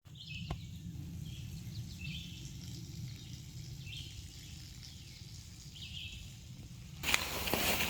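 A bird chirping, one short call every second or so, over a faint low steady rumble. Near the end a louder rustling starts.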